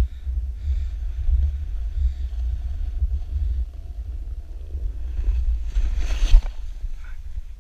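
Wind buffeting the microphone of an action camera on a downhill ski run, a loud uneven low rumble. About six seconds in, a short hiss of snow scraping under the rider's edges rises above it.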